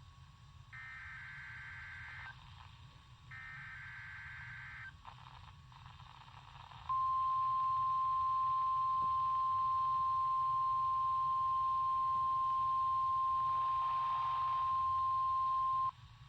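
NOAA Weather Radio test alert playing from a weather radio receiver. It opens with two buzzy, warbling SAME digital header bursts of about a second and a half each. About seven seconds in, the steady single-pitch warning alarm tone starts and holds for about nine seconds before cutting off. The alarm tone marks the start of a test of the station's warning alarm system for a tornado drill.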